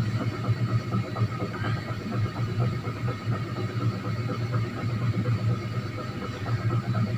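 A steady low hum, with the faint scratch of a marker writing on a whiteboard.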